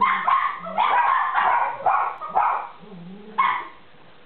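Small dogs barking and growling in play: a quick run of sharp yapping barks, low growls between them, one more bark about a second later, then it dies down near the end.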